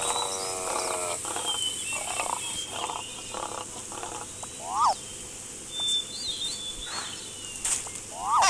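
Animal-call sound effects over a bed of birdsong: a falling, pitched call in the first second, then a run of short pulses about twice a second, with short bird chirps and whistles scattered through.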